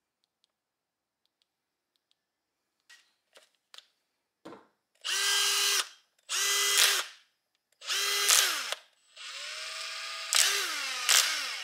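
Makita DFS452Z cordless drywall screwdriver's motor run in three short bursts of about a second each, then one longer run that ends with its pitch falling as it winds down. A few light clicks come before the first burst.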